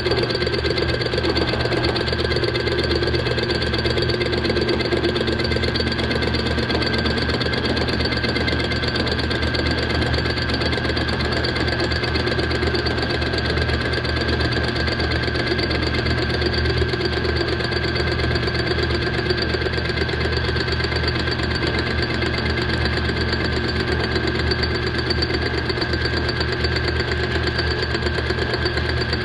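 Milling machine running steadily, its cutter machining across the deck face of a Kawasaki X2 jet ski cylinder to true the gasket surface. It makes a continuous rattling cutting chatter over a steady high whine.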